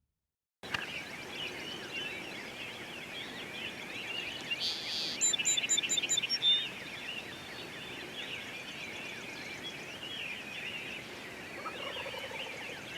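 Wild turkey gobbling about five seconds in, over a dense dawn chorus of many songbirds chirping and trilling.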